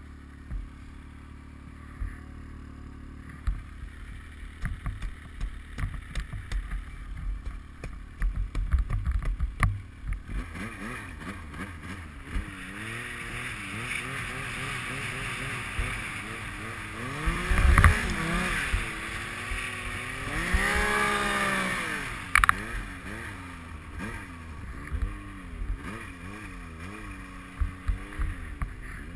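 Yamaha Nytro snowmobile's four-stroke three-cylinder engine, running low with scattered knocks and thumps for about the first ten seconds, then revving up and down repeatedly, with a loud thump around eighteen seconds in, before settling back to lower running with more knocks near the end.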